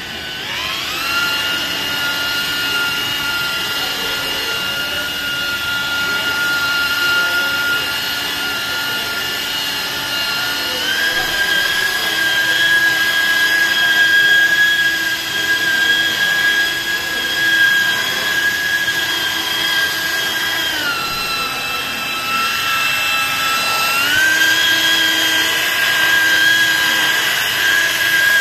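Electric car polisher's motor spinning up just after the start, then running with a steady whine as the pad works the door paint. Its pitch steps up about eleven seconds in, drops around twenty-one seconds, and rises again about three seconds later.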